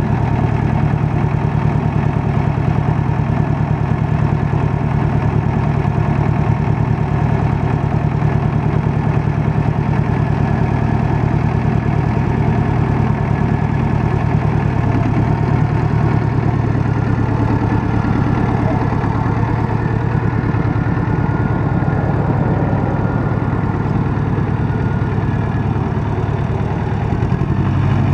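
Farm Pro 2420 compact tractor's diesel engine running steadily, its note shifting slightly about halfway through.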